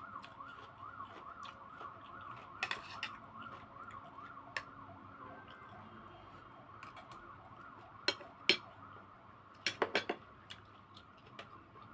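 A spoon and fork clink against a plate several times, loudest about eight seconds in and again around ten seconds. Under them, a siren warbles faintly and steadily in the distance.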